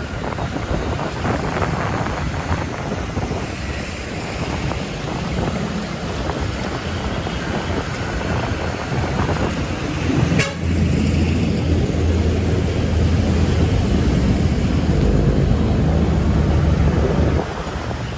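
Road and wind noise from a moving vehicle, with a short sharp click about ten seconds in, after which a steady low hum grows louder until shortly before the end.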